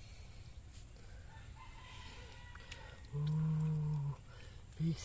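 Rooster crowing in the background, with a steady low pitched call about a second long a little after the middle.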